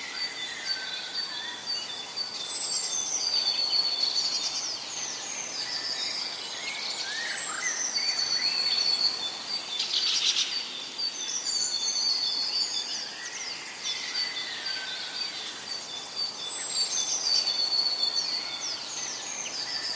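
A chorus of several birds singing and calling over each other, with a whistled phrase that recurs every few seconds and a short rapid trill about halfway through.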